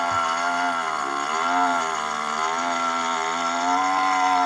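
Stihl 660 two-stroke chainsaw on a chainsaw mill running at high revs while ripping a slab. Its pitch sags a little about a second in under the load of the cut, then picks back up.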